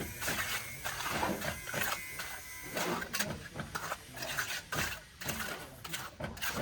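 Irregular knocking, clattering and scraping from hand building work.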